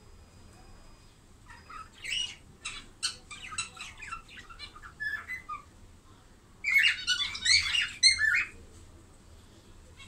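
Budgerigars chirping, with scattered short calls from about two seconds in, then a louder burst of rapid chattering near the end.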